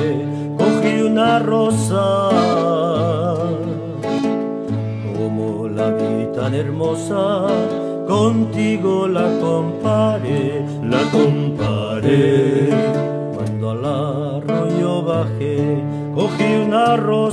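A havanera played on strummed acoustic guitar, with a wavering melody line over steady bass notes.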